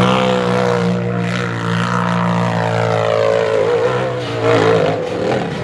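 Off-road race buggy's engine held at high revs, a steady drone that sags slightly in pitch, then changes and becomes uneven about four and a half seconds in.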